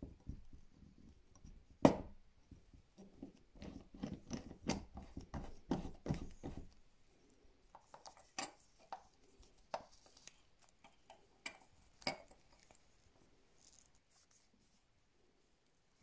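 Small clicks and knocks of a watch bezel being handled and worked in a hand-operated crystal press, with one sharp click about two seconds in that is the loudest, a busy run of handling knocks after it, then sparser clicks that die away.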